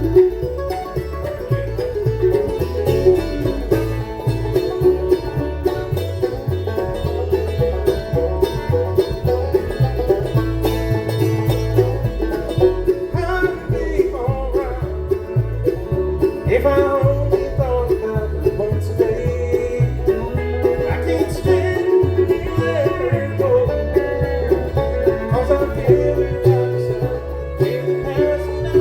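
Bluegrass band playing live, with the banjo to the fore over guitar.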